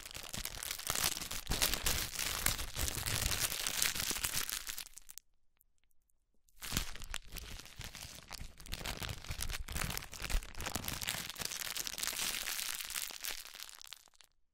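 Instant noodle bag's crinkly plastic packaging being rustled and crumpled by hand in two long bouts, with a pause of about a second and a half around five seconds in.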